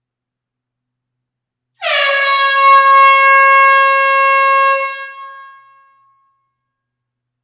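Air horn sounding one long blast of about three seconds, starting about two seconds in with a brief drop in pitch, then holding steady before fading away.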